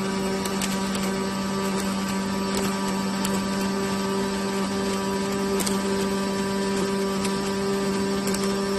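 Steady machine hum from robotic welding equipment, two constant tones over an even hiss with a few faint, scattered ticks.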